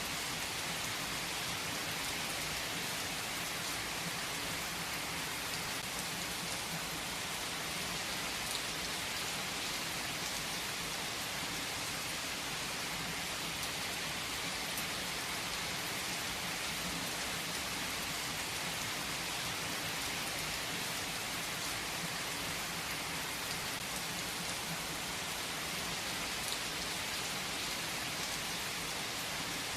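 Steady rain falling, with a dense hiss of drops and now and then a single drop ticking out of it.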